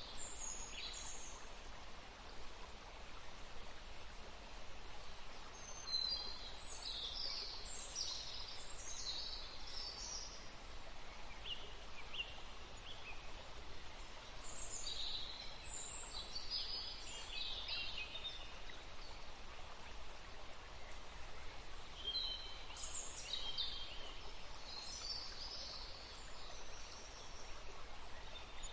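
Wild birds singing: groups of short, high chirps every few seconds over a steady background hiss.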